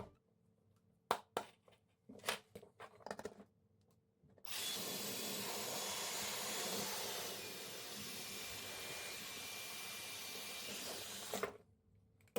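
A few clicks and knocks of plastic parts being handled, then a Dyson hair dryer switched on and running for about seven seconds: a steady rush of air with a faint high whine. It drops slightly in level partway through and cuts off suddenly, followed by a couple more clicks.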